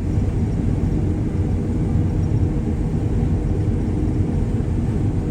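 John Deere combine running steadily while harvesting wheat, heard from inside the cab: a constant low machinery rumble with a steady hum.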